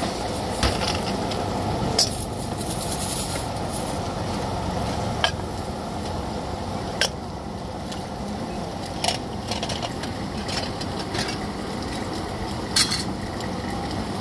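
Aluminium pot lids clinking against cooking pots, a handful of sharp metal knocks spread through, over a steady low rumble.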